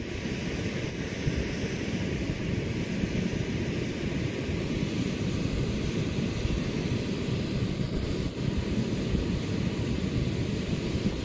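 Electric inflation blower of a bouncy castle running with a steady, even rushing drone.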